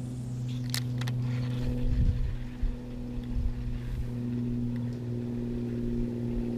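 A steady low mechanical hum with several overtones, like a motor running at a constant speed. A couple of light clicks come about a second in.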